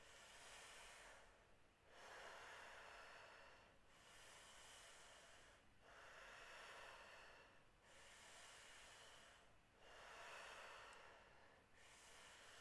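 A person breathing deeply and faintly in a steady rhythm, about one full in-and-out breath every four seconds. These are the paced power breaths of a Wim Hof breathing round.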